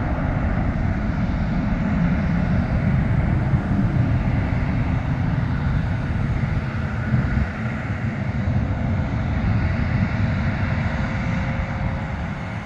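Twin turbofan engines of an Airbus A300-600 freighter (Pratt & Whitney PW4158s) at takeoff power during the climb-out. A steady jet noise, heaviest in the low end, that eases slightly near the end as the aircraft climbs away.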